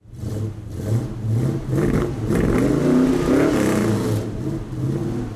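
Race car engines revving, their pitch rising and falling and loudest around the middle.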